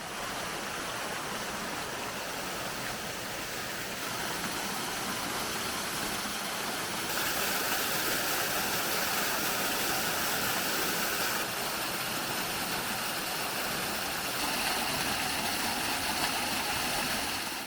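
A small forest waterfall pouring into its pool: steady rushing of falling water, a little brighter in the middle of the stretch.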